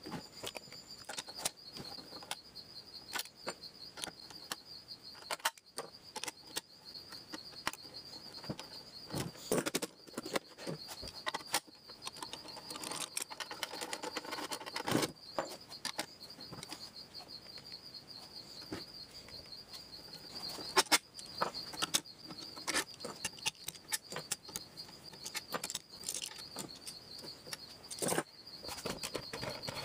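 Irregular metallic clicks, clinks and knocks of a socket wrench and loose bolts as the head and shroud bolts are taken out of a 1970s Clinton small air-cooled engine, with a brief run of rattling about halfway through. A faint, steady high-pitched whine sits underneath.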